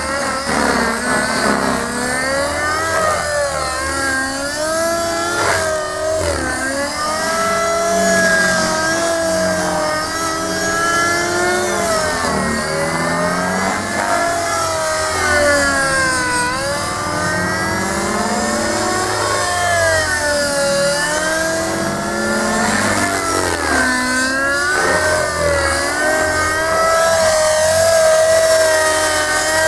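Gaui NX4 radio-controlled helicopter in flight, its rotor and drivetrain whine rising and falling in pitch again and again as it manoeuvres.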